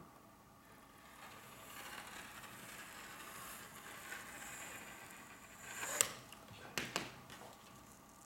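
Rotary cutter blade rolling through silk brocade along a metal ruler on a cutting mat: a faint, even cutting noise for several seconds. Then a few sharp clicks as the cutter is set aside.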